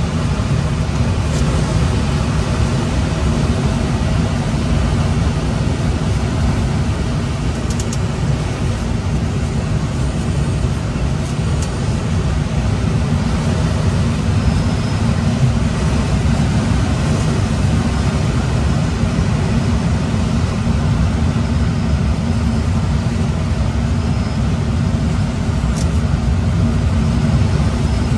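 Steady rush of airflow around the cockpit of a Schweizer SGS 2-33A glider gliding in on approach with no engine, a heavy low rumble of wind buffeting throughout, with a few faint ticks.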